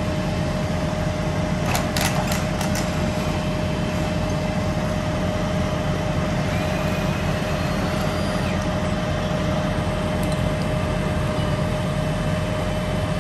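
Engines of utility bucket trucks running at idle: a steady low rumble with a steady hum over it. A few quick sharp clicks about two seconds in.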